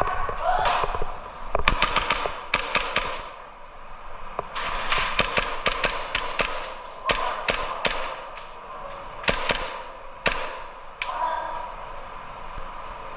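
Airsoft guns firing in a close-quarters game: sharp cracks in quick strings and single shots, in clusters with short pauses between.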